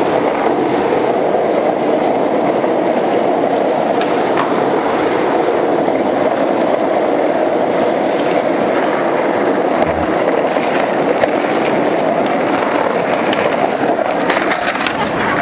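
Skateboard wheels rolling steadily over street asphalt, a loud continuous rumble. Near the end a few short sharp clacks break in.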